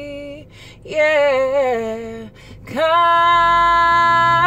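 A woman singing unaccompanied, slow and hymn-like. A held note ends about half a second in, a short phrase falls away with vibrato, and after a breath a long steady note is held to the end.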